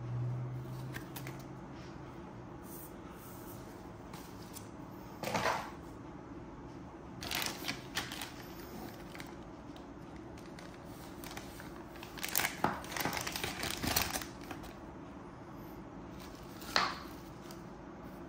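Clear plastic zip-lock packaging bags rustling and crinkling in short bursts as the dash cam's parts are handled and unpacked, over a steady low hum.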